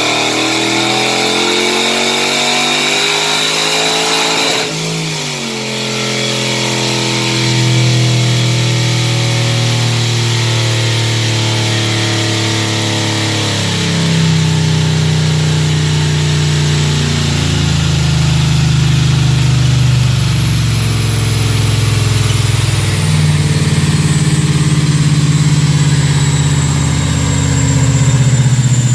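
Procharged 6.1-litre Hemi V8 of a 2009 Dodge Challenger SRT8 revving up under load, with a rising supercharger whine, for about four and a half seconds. The revs then drop suddenly, and the engine runs on steadily with slow rises and small steps in pitch.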